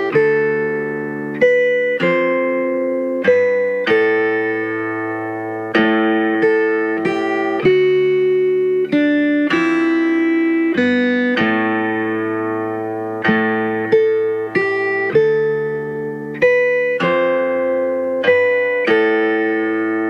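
Background music: plucked guitar playing a slow melody, each note struck sharply and left to ring out.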